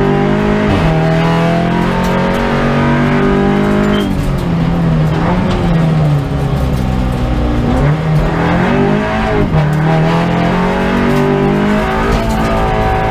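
Audi RS3 LMS race car's turbocharged two-litre four-cylinder engine heard from inside the cabin, driven hard on track: its pitch climbs under acceleration and drops sharply at each gear change, several times over.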